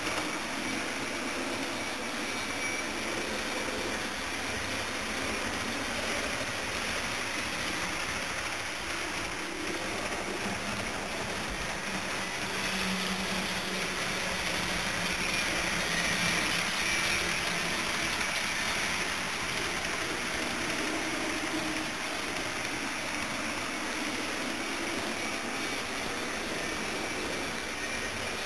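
HO-scale model train, an EF60 electric locomotive model hauling lit passenger cars, running on layout track: a steady running noise of motor and wheels on rail, growing a little louder about halfway through.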